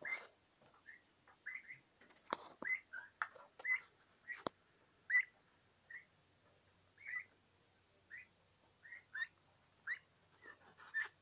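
Young domestic turkeys giving short whistled peeps, roughly one or two a second, with a few sharp clicks mixed in.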